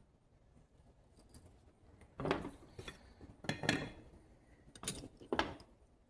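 Small metal hand tools and kit parts being picked up and set down on a work surface: a series of short clinks and clatters starting about a second in, some five or six in all.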